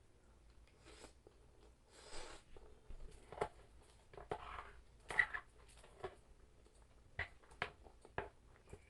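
A person eating close to the microphone: chewing and biting, with irregular short sharp clicks and crunches, a few of them louder, and a brief hiss about two seconds in.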